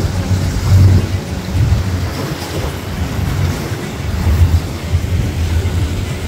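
Low rumble of a boat's engine under way on the water, mixed with wind buffeting the microphone, rising and falling unevenly.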